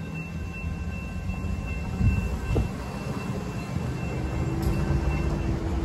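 Low rumble of road traffic moving over a railroad level crossing, swelling about two seconds in. A faint steady high tone cuts off near the end.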